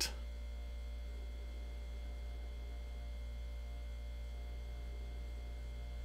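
Steady low electrical hum with a faint hiss and a few thin steady tones behind it, unchanging throughout. It is the recording's background noise, with no other sound.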